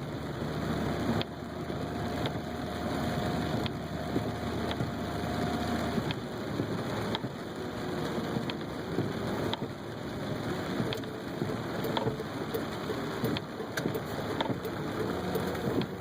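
Heavy rain falling steadily, with a low motor hum underneath and scattered sharp ticks about once a second.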